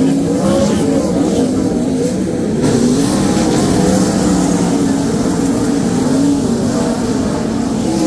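A field of sprint cars racing on a dirt oval, several V8 engines heard at once, their pitches rising and falling.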